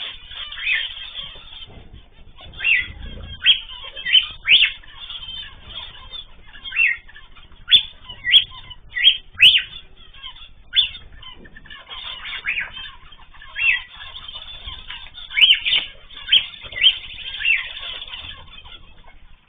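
Mixed cage birds, cockatiels, zebra finches and canaries, chirping: many short, sharp calls repeated irregularly, coming in quick runs of several calls a second at times.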